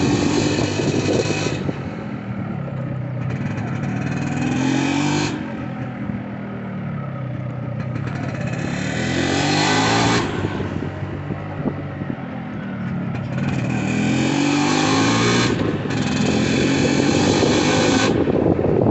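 Yamaha RX135 5-speed's single-cylinder two-stroke engine on its stock exhaust, revving up and easing back several times, its pitch rising and falling with the throttle.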